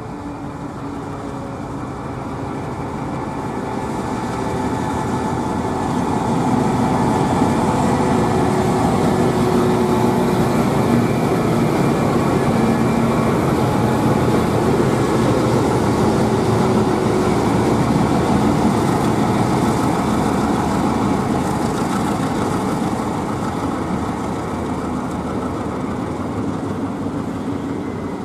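Twin ALCO WDG3A diesel locomotives running hard as they approach and pass close by, growing louder over the first several seconds. The coaches then roll past with wheel-on-rail noise, easing off slightly near the end.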